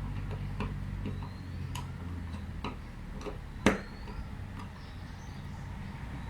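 Small clicks and taps of a screwdriver and wire being worked into the neutral terminal of a distribution board, with one louder click about three and a half seconds in, over a low steady rumble.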